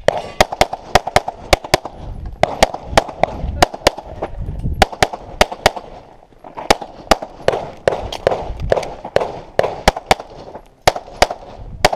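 Semi-automatic pistol firing rapid strings of shots, mostly in quick pairs, with brief pauses between strings while the shooter moves between positions.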